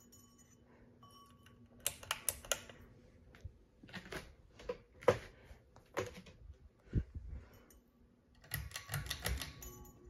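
Harbor Breeze Grace Bay ceiling fan running with a faint steady hum, over which come irregular bursts of sharp clicking and clatter, in quick clusters about two seconds in and again near the end.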